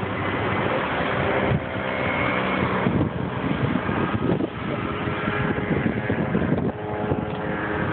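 An engine running steadily with a constant hum, mixed with gusty wind noise on the microphone.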